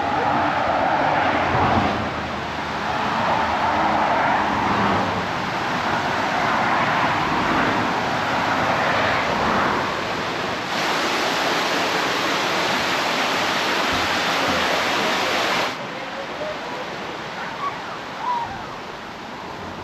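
Steady rushing of wind and water on a moving tour boat, with faint voices in the background. About halfway through the rush turns brighter and hissier for roughly five seconds, then cuts off abruptly and quietens toward the end.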